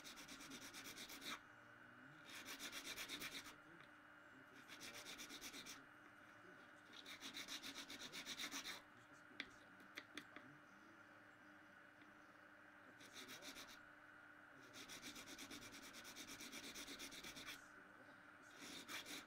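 Needle file rasping against a small piece of mother-of-pearl, in bursts of quick strokes lasting a second or two with short pauses between them. A few small clicks come near the middle, over a faint steady hum.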